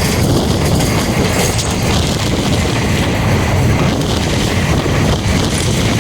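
A moving vehicle's steady rumble with continuous rattling and clatter.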